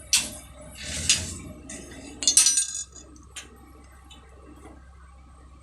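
A run of sharp metallic clinks and clatters, four bursts over the first three and a half seconds, then only quiet background.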